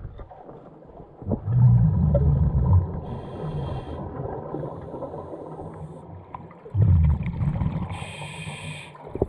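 Scuba diver breathing through a regulator underwater: two loud bursts of exhaled bubbles rumbling past the camera, each about a second and a half long, and each followed by a brief hiss from the regulator as the diver breathes in.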